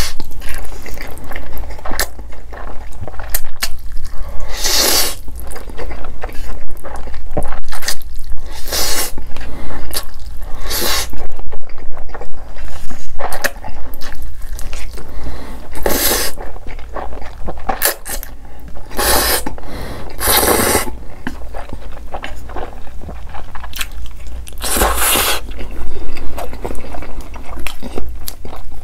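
Close-miked slurping of sauce-coated noodles: about eight loud, drawn-out slurps spread through, with wet chewing and mouth sounds between them.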